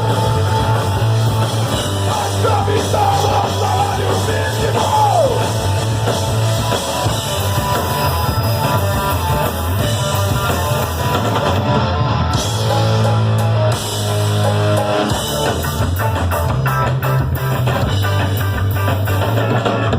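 Punk rock band playing live, with electric guitar and drum kit at full volume.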